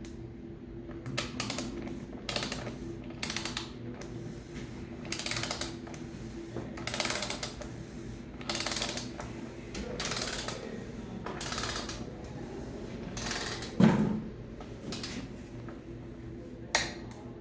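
Ratchet wrench with a 36 mm socket clicking in short strokes as the oil filter cap on a Detroit DD13 diesel's filter housing is tightened down to torque, a stroke every second or two, with one louder knock late on.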